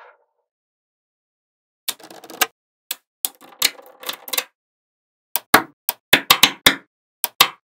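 Small magnetic balls clicking sharply as they snap together, with short bursts of rattling between clicks. After a silent pause of over a second the clicks start, scattered at first and then coming in a quick run of about ten near the end.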